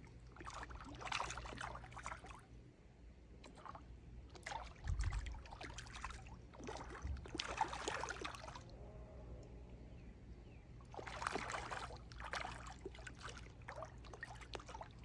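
Fish splashing and slurping at the surface of a pond, in three bouts of a few seconds each with quieter gaps between, over a low steady rumble.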